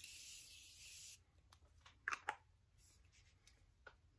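Morphe setting spray misted onto the face from its pump bottle: a hiss that stops about a second in. A couple of small clicks follow about two seconds in.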